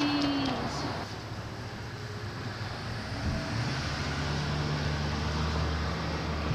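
Road traffic noise with a motor vehicle running; a steady low engine hum sets in about three seconds in.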